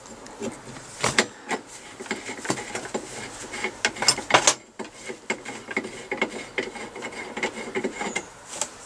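A threaded metal hose fitting being turned by hand in a small air compressor's outlet tap: repeated scraping of the threads with small clicks and knocks of handling, stopping a little after eight seconds in. The threads are dry, with no PTFE tape on them.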